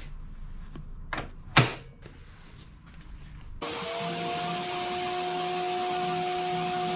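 A few clicks and knocks of wooden jig parts being handled and set, one sharp knock about a second and a half in. About three and a half seconds in, a power tool's electric motor switches on and runs steadily with a high whine and a hiss.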